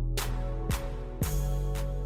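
Background music with a steady beat: drum hits about twice a second over a deep bass that slides down in pitch with each hit.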